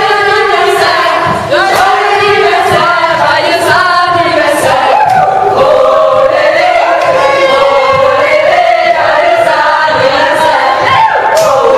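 A group of people singing loudly together, one melody with long held notes that rise and fall.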